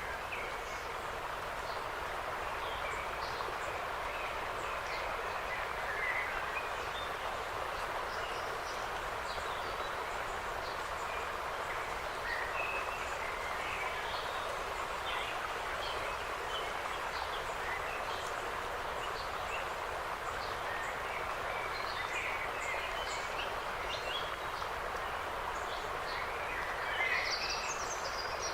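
Forest ambience: small birds chirping and calling now and then over a steady rushing background noise, with a brief flurry of calls near the end.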